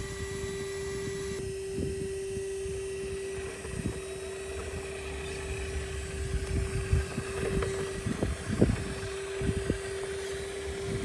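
Electric drive motor of a radio-controlled rock crawler whining at a steady pitch under load while it climbs, with scattered knocks of the tyres and chassis against the rock.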